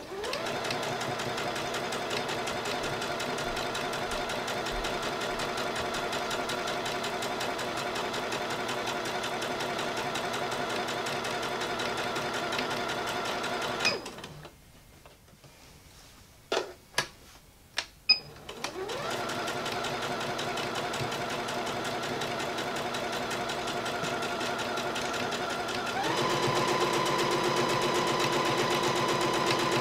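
Singer Confidence computerized sewing machine stitching steadily. It stops about halfway, with a few clicks in the pause, then starts again, rising in pitch as it gets going, and runs louder and higher-pitched near the end.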